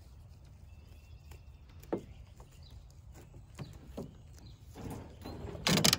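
Goat hooves knocking and rattling on a wire crate and its plastic tray: a few scattered knocks, then a louder clatter near the end.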